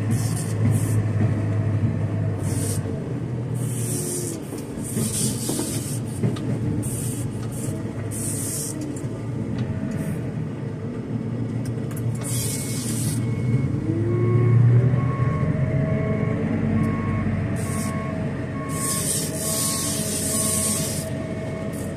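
JCB telehandler's diesel engine running under load in the cab, rising in pitch twice as the machine works, with short bursts of hiss. In the second half an evenly pulsed beeping sounds over the engine.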